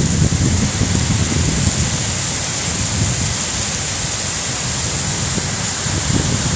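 Heavy rain pouring down in a thunderstorm, a steady loud hiss. Wind buffets the microphone as an uneven low rumble that swells again near the end.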